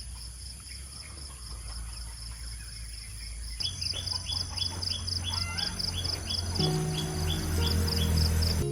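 Crickets chirping in a steady pulse of about three chirps a second over a constant high insect whine, getting louder about three and a half seconds in, with short falling bird-like chirps. Instrumental music comes in under it near the end.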